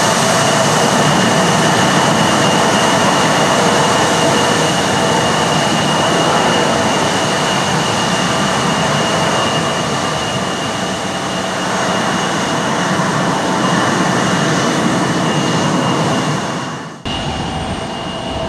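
Embraer E175's twin General Electric CF34 turbofans running at taxi power as the jet rolls close by: a steady rush with a high whine on top. Near the end the sound cuts off abruptly and comes back somewhat quieter.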